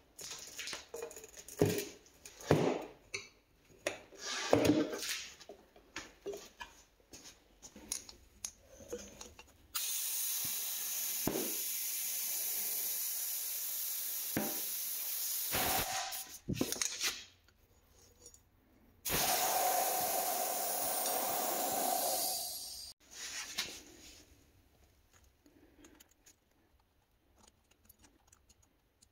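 Scattered clicks and knocks of tools and metal parts being handled, then two long, steady hisses of compressed air, the first about seven seconds long and the second about four.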